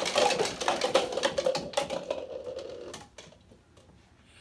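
Plastic cups clattering as they tumble off a stacked pyramid and hit the shelf and carpet: a dense run of rapid clicks that thins out and stops about three seconds in, over a steady hum.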